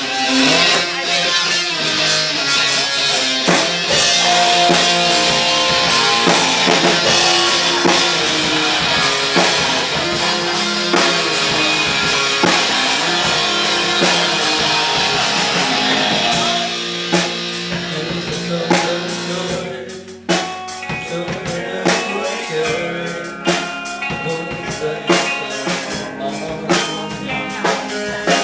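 Band music playing an instrumental passage with electric guitar and drum kit; about two-thirds of the way through it thins out to mostly drum hits.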